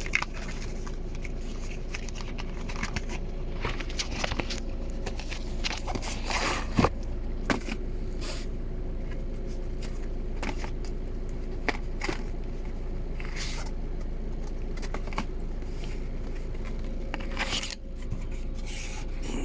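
Cardboard product box being opened and its packaging handled: irregular scraping, rustling and tearing, with a faint steady hum underneath.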